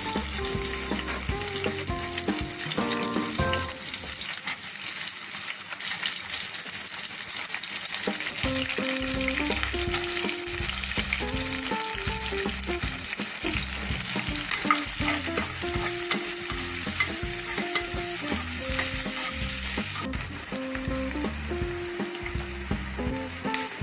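Onions sizzling as they fry in hot oil in a pressure cooker, being stirred, on their way to light golden.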